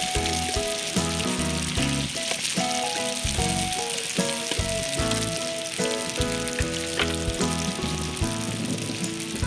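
Sfenj dough frying in hot oil in a tagine over a charcoal kanoun: a steady sizzle, with background music playing a melody over it.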